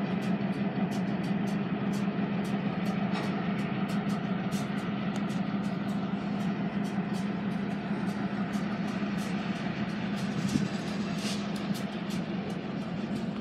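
Diesel freight locomotives running with a steady low drone as the train moves slowly past, with light clicking at about two to three a second over it.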